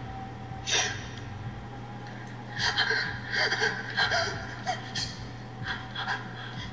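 A person gasping and breathing hard in several short, breathy bursts, most of them bunched together in the middle, over a steady low hum.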